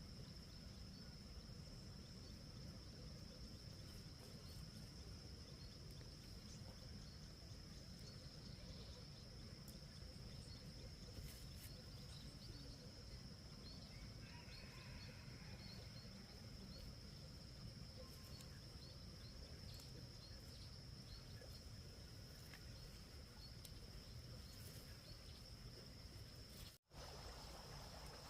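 Faint outdoor ambience: a steady high-pitched insect drone over a low rumble, with a few faint chirps in the middle. The sound cuts out for a moment near the end.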